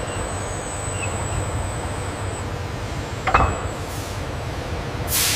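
A steady low rumbling noise. About three seconds in comes a single sharp metallic knock, and near the end a brief hiss swells.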